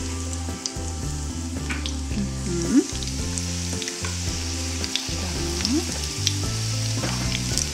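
Chicken cutlets sizzling as they fry in hot oil in a frying pan, with a few light clicks of a spoon as more minced chicken mixture is spooned in and shaped in the pan.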